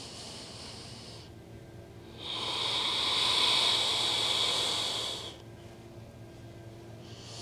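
A person's slow, audible yoga breaths held through a pose: one breath trailing off in the first second, a longer, louder one from about two to five seconds in, and the next beginning at the very end.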